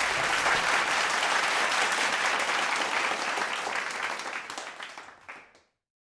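Audience applauding after a song, a dense patter of many hands clapping that dies away near the end and then cuts off suddenly.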